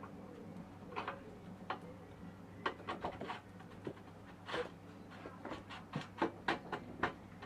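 A string of short clicks and knocks from hands fitting a part onto a motorcycle under rebuild, sparse at first and coming faster in the second half, over a steady low hum.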